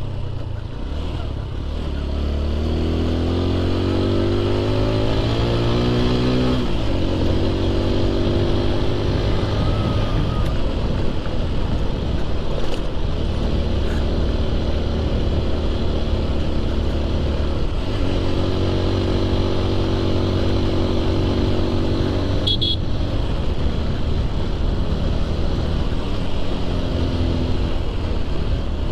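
Motorcycle engine heard from the rider's seat, its pitch climbing as it accelerates and then dropping at a gear change about 7 seconds in. It then runs steady, with another brief break around 18 seconds and a short sharp click a few seconds before the end.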